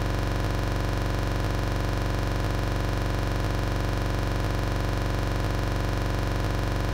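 A steady synthesizer drone holding one chord without change, with a deep low end and a fine, fast flutter.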